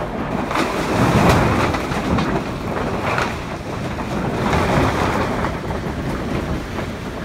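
Wind buffeting the microphone in swells, with the rustle of the plastic roof tarp sheeting stretched over the battens.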